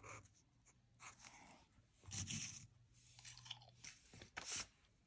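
Faint chewing of food, in a few short, irregular bursts.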